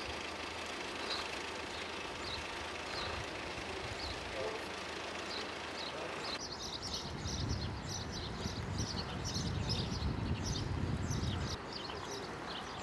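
Outdoor ambience of small birds chirping, sparse at first and then many quick chirps after the background changes abruptly about six seconds in, with a low traffic rumble from about seven to eleven and a half seconds.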